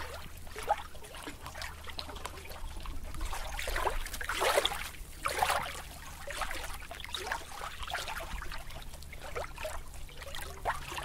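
Water splashing and gurgling, with many short bubbling chirps that swell in the middle, over a steady low hum.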